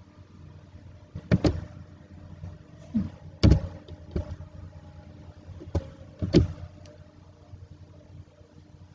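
About six separate, irregularly spaced knocks and clicks from a computer keyboard and mouse close to the microphone, the loudest about a second and a half, three and a half and six and a half seconds in, over a faint low steady hum.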